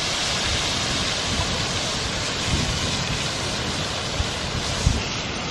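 Chopped tomato, onion and green chile sizzling steadily in hot oil in a large frying pan over a wood fire, with a couple of short clicks near the end.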